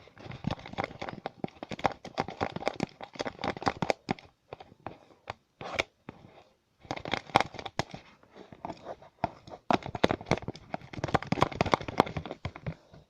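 Homemade glue-stick slime being stirred by hand, a dense run of small wet crackling clicks as the sticky mixture is worked, with a pause of about two seconds partway through.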